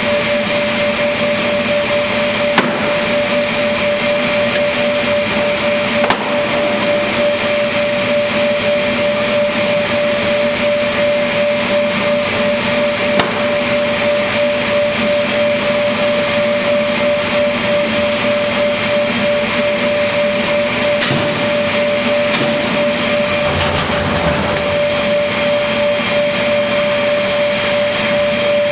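Automatic MDF panel-cutting machine running steadily, a constant hum with a steady high tone over machine noise, with a few sharp clicks and a brief low rumble about three quarters of the way through.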